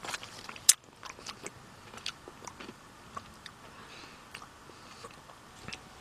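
Mouth sounds of someone eating a soft-serve Dairy Queen Blizzard: scattered small wet clicks of chewing and lip smacks, with one sharper click a little under a second in.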